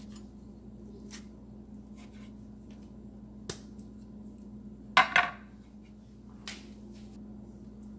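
Knife and avocado knocking against a cutting board as the avocado is split and its pit removed: a sharp click about three and a half seconds in, a louder double knock about five seconds in, and a lighter one a second later, over a steady low hum.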